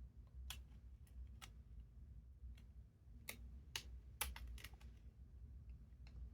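Scattered light clicks and taps, about nine, several close together in the middle, from the small parts of a 1st-gen iPod Nano being handled and fitted back together.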